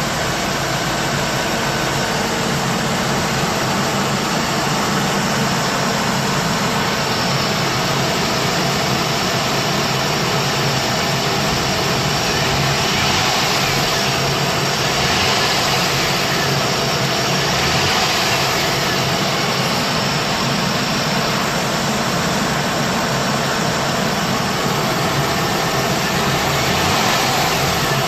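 VX Commodore SS's 5.7-litre V8 engine running steadily, at or near idle.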